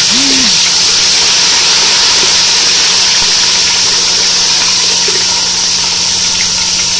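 Ginger-garlic paste sizzling in hot mustard oil: a loud, steady hiss of frying.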